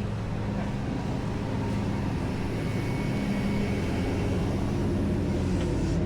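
Flatbed tow truck's engine running steadily at idle, an even low drone.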